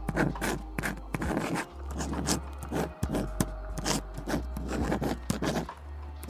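Writing on paper: a quick, irregular run of short scratchy strokes, several a second, over a steady low hum.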